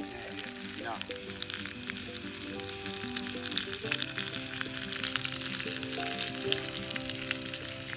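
Chicken drumsticks and green peppers frying in a cast-iron skillet over an open campfire: a steady sizzle with many small pops and crackles. Music plays in the background, with notes held and changing.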